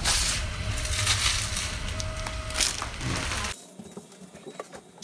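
Crackling, rustling handling noise with a low rumble from a hand-held camera's microphone as it is moved. It cuts off abruptly about three and a half seconds in, leaving a quiet room with a few faint ticks.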